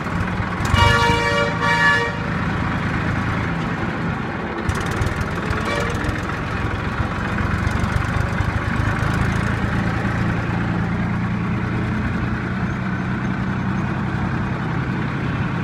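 Tractor engine running steadily as the tractor drives on, with a vehicle horn honking twice about a second in.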